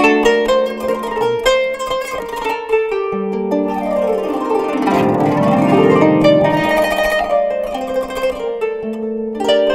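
Kanun, the Turkish plucked zither, playing a melody of quick plucked notes; about halfway through, a fast run sweeps down and then back up.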